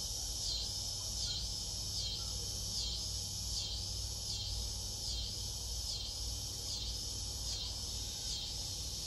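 Insect chorus: a high, pulsing buzz that swells and dips about one and a half times a second, over a low steady hum.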